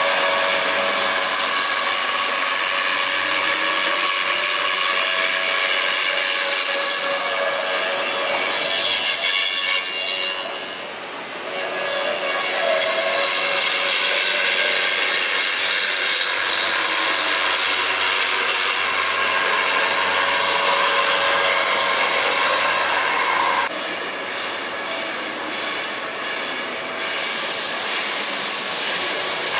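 High-speed CNC router spindle milling a foam boat hull mould: a steady high-pitched whine with the hiss of the cutter chewing through the foam. The sound dips briefly about ten seconds in and is quieter and duller for a few seconds near the end.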